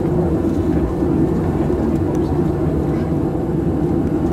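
Cabin noise inside a Boeing 737-700 airliner as it taxis: its CFM56-7B jet engines run at low taxi thrust, heard as a steady low rumble.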